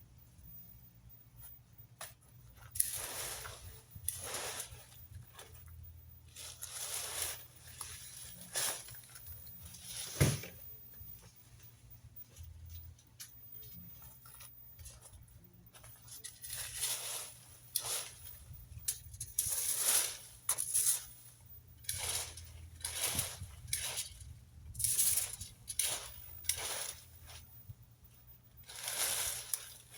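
Dry leaves and yard debris rustling and scraping in irregular swishes as they are raked and gathered up, with a single sharp knock about ten seconds in.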